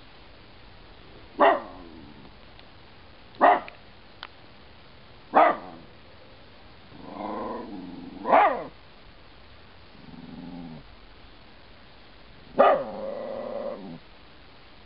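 Italian greyhound alarm-barking at an intruder it has spotted: five short, sharp barks, the first three about two seconds apart. Low growls come between the later barks.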